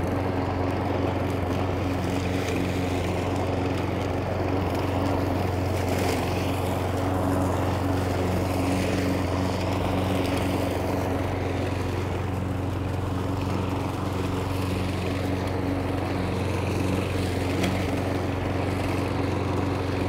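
Hyundai L5520S petrol lawn mower running at a steady, unchanging engine speed: an even hum.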